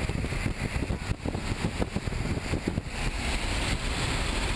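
Steady drone of a jump plane's engine and rushing air, heard inside the cabin, with scattered bumps and rustles from gear being handled close to the microphone.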